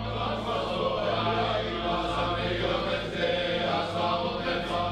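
Samaritan men chanting prayers together in a synagogue, several voices sounding in unison with a steady low drone underneath.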